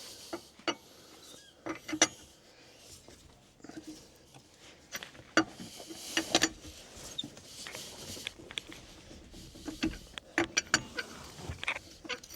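Irregular metallic clicks and clanks of hand tools at work on a car's wheel: wheel nuts being undone with a hand wheel brace and a jack being set under the car.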